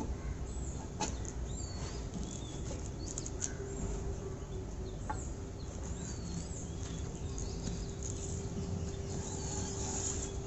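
Small birds chirping in the background, short high chirps repeating again and again, over a steady low hum, with a couple of light clicks.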